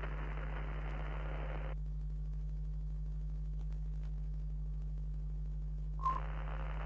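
Steady low electrical hum, like an old television set, broken by bursts of static hiss: one about two seconds long at the start, then a short crackle with a brief beep near the end.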